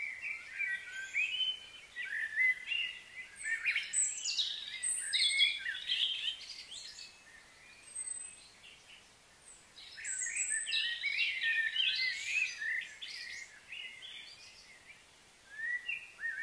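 Birds chirping and calling in quick, overlapping high notes. The calling comes in busy spells, through the first six seconds, again from about ten to thirteen seconds in, and once more near the end, with quieter gaps between.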